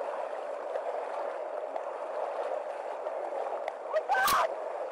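Fast-moving floodwater rushing and churning steadily around a car, heard through a police body camera's microphone. A brief raised voice cuts in about four seconds in.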